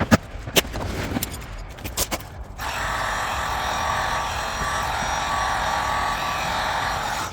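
Sharp knocks and clanks of tools working on the car's sheet-metal body panel, then an abrupt steady hiss about two and a half seconds in.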